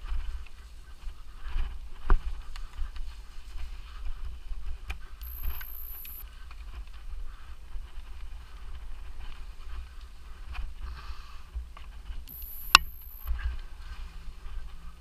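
Mountain bike being ridden over a rough forest trail: a steady low rumble with the bike rattling and sharp knocks over roots and rocks, the loudest about two seconds in and near the end. Twice a short high-pitched whine comes in for about a second.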